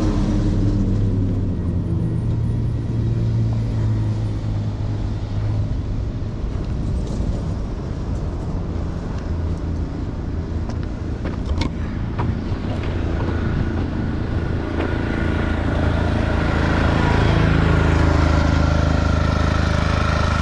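Highway traffic passing close by: engines of cars and heavier vehicles running, louder at the start and again near the end as vehicles go past, with a thin high whine in the second half.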